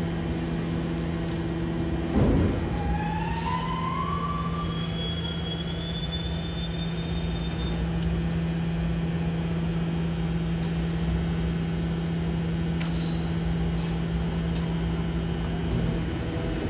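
Battery-electric BYD garbage truck running: a steady electric hum that stops near the end, with a whine that rises in pitch a few seconds in and a single clunk about two seconds in.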